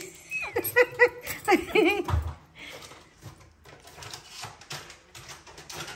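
A quick run of high-pitched, rising-and-falling vocal calls over the first two seconds, then faint clicks and small knocks.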